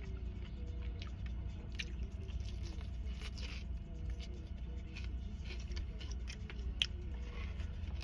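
A person chewing and biting food close to the microphone, with scattered wet clicks and smacks, over a steady low rumble and faint background music.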